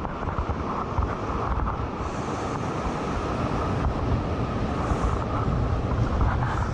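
Wind buffeting the microphone, a steady rushing noise.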